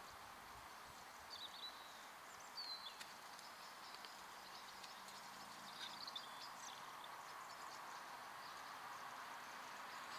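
Faint bird chirping: a few short high notes about a second in, near three seconds and around six to seven seconds, over a steady faint hiss.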